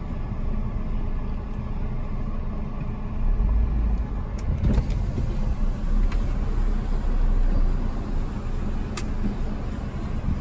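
Car rumbling at low speed, heard from inside the cabin, with a few light clicks about halfway through and another near the end.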